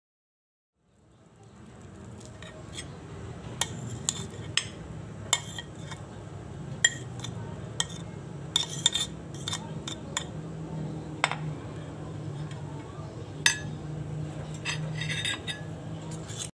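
Metal spoon clinking and scraping against ceramic plates as chopped potato and carrot are spooned out, in irregular sharp clinks. A steady low hum runs underneath.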